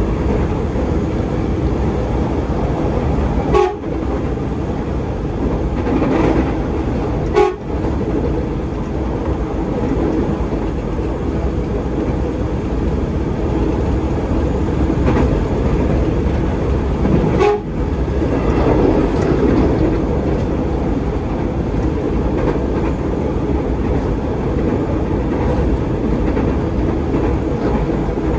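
Electric commuter train heard from inside the carriage while running at speed: a steady rumble of wheels on rail. Three brief sharp knocks stand out, a few seconds apart.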